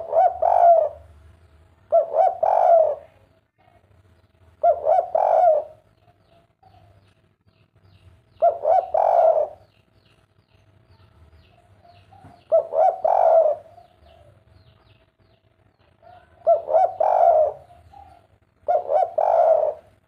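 Spotted dove (derkuku) cooing its 'kuk 3' song: seven phrases a few seconds apart, each a quick run of cooing notes lasting about a second.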